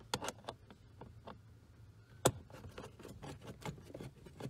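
Screwdriver working a screw out of a plastic dashboard panel: a string of small clicks, taps and scrapes of metal on plastic, with one sharp, loud click about two seconds in.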